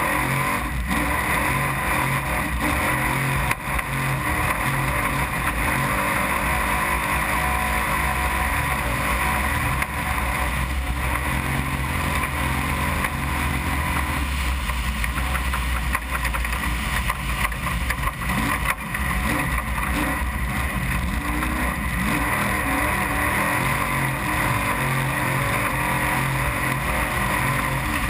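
Desert trophy truck racing flat out, its engine running at high revs with a steady drone that rises and falls a little in pitch, over dense wind and chassis noise, with a few sharp knocks from the rough course.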